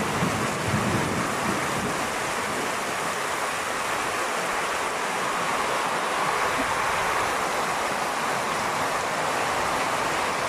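Torrential rain pouring down while muddy floodwater rushes along the road, a steady, even rush of water noise.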